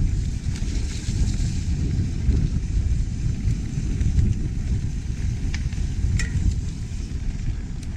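Mountain bike ride heard through a GoPro's microphone: steady, gusty rumble of wind buffeting the mic and tyres rolling over the dirt trail, with a couple of sharp ticks in the second half.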